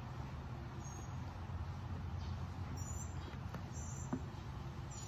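Quiet room tone: a steady low hum, with a few faint, short high squeaks scattered through it.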